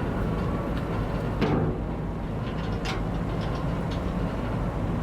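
Steady low rumble and drone of a moving car ferry heard from on board, with a few short clicks and knocks, the loudest about a second and a half in.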